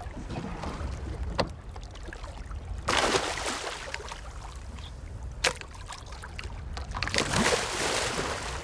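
A big tarpon thrashing in the water at the side of a boat while held on a gaff pole. There are loud splashes about three seconds in and again building near the end, a couple of sharp knocks in between, and a low rumble underneath.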